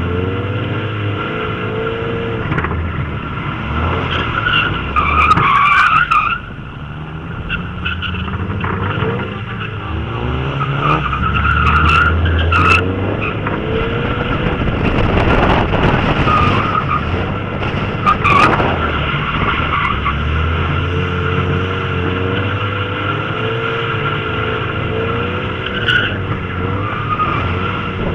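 Mazda MX-5 Miata's four-cylinder engine revving up and down while drifting, with the tyres squealing and skidding through several slides. The engine drops off sharply once, about six seconds in.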